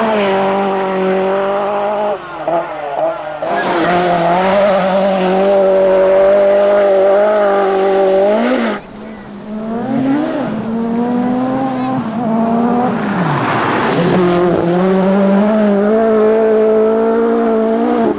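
Group B rally car engines running hard at high revs on a gravel stage, the engine note held high for long stretches. About halfway through the pitch drops sharply, then climbs again, and a few seconds later it swoops down and back up.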